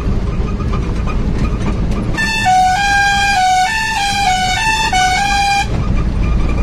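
A vehicle's musical horn plays a short stepping tune of about ten notes, starting about two seconds in and lasting about three and a half seconds, over a steady low rumble.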